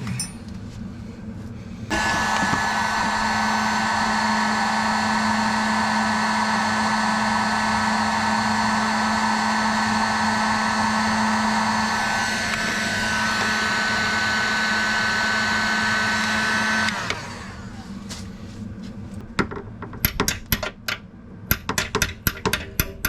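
Electric heat gun switching on about two seconds in and blowing steadily for some fifteen seconds with a whining hum, heating a corroded brake line fitting to free it. It then shuts off, and sharp metallic clicks and taps of tools on the fitting follow near the end.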